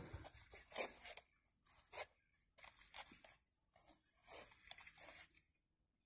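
Near silence, broken by a few faint, scattered rubbing sounds.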